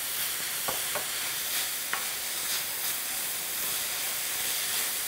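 Diced pork, onion and carrot sizzling steadily in oil in a large pan, stirred with a wooden spatula that scrapes and taps against the pan a few times.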